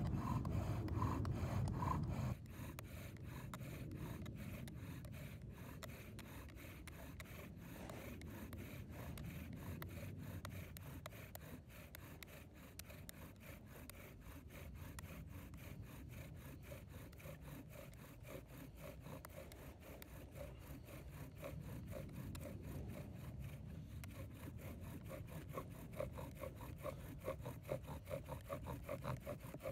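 Boxelder bow drill at work: the spindle grinding and squeaking in the hearth board with each back-and-forth stroke of the bow, in a steady rhythm. The strokes come faster and louder in the last few seconds as the drilling is pushed toward an ember.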